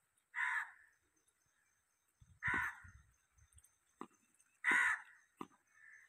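A crow cawing loudly three times, about two seconds apart, with two short sharp knocks in between.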